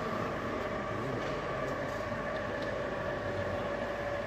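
Model train running on an exhibition layout: a steady whine from the locomotive that sinks slightly in pitch, with a few faint clicks, over a constant background hum.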